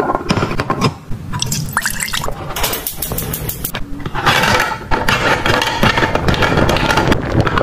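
Water sloshing and splashing in a small glass pot as plastic toy food is tipped in and stirred with a spoon. Plastic clicks and knocks against the glass come first, and the sloshing thickens from about four seconds in.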